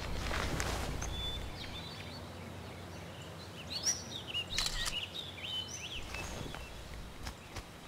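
Songbirds chirping in a forest ambience: short, quick up-and-down chirps over a faint steady hiss, busiest about halfway through. A brief noisy swish opens it and is the loudest sound.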